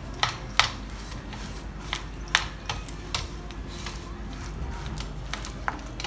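A metal spoon stirs chopped peanuts and almonds into thick caramel in a ceramic bowl, making irregular light clicks and taps as it knocks against the bowl.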